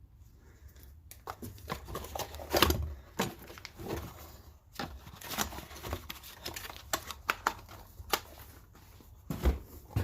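Packaging rustling and crinkling with many small clicks and knocks as boxed engine bearings are handled, starting about a second in.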